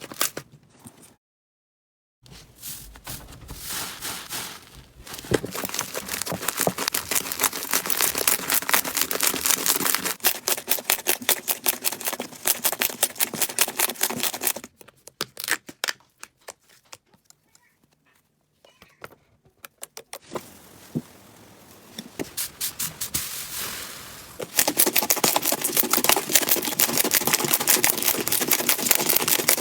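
Slime being squeezed and poked, giving rapid crackling and clicking pops, in several clips with short breaks between them; the crackling is thinner and sparser in the middle and densest near the end.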